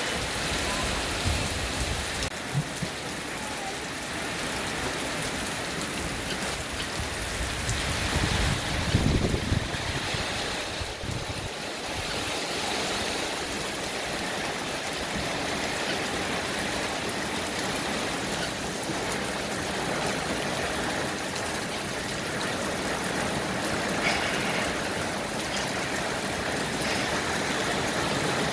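Steady rain falling on trees and leafy garden plants: an even hiss of drops on the leaves. A brief low rumble swells about nine seconds in.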